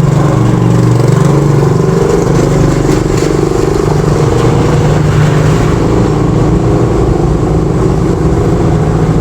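A close engine running steadily, with its pitch wavering slightly.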